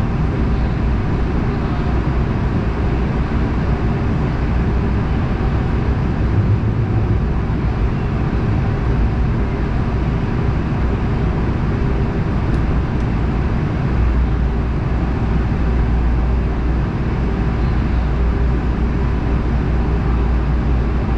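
Interior of an LA Metro light rail train running between stations: a steady rumble of wheels on track and traction motors, with a faint hum. The low rumble grows heavier about two-thirds of the way through.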